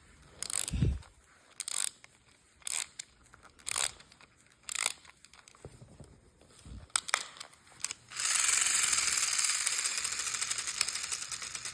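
Clockwork wind-up swimming toy being wound, with single ratchet clicks about once a second. About eight seconds in, the spring is released and the clockwork motor runs with a fast buzzing whir that slowly fades as it unwinds.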